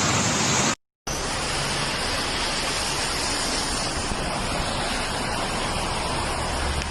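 Swollen river of floodwater rushing steadily past in a dense, even wash of noise. The sound cuts out for a moment about a second in, then the same rushing resumes.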